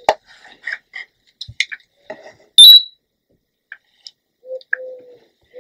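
Scattered light clicks and taps as GHD hair straighteners are handled and clamped through the hair, with one short, sharp high chirp about two and a half seconds in.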